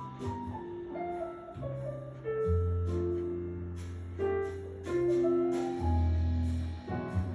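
Instrumental background music: held melodic notes over a sustained bass line, with light percussion.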